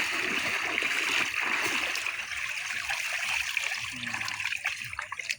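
River water splashing and trickling, loudest for the first two to three seconds and then dying down.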